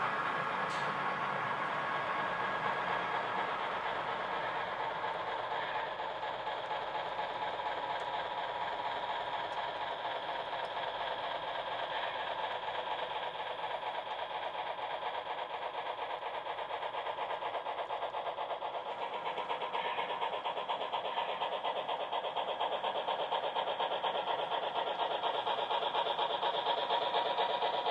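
HO scale model freight train running past on the layout: a steady mechanical running noise with fast, fine clicking, growing a little louder near the end.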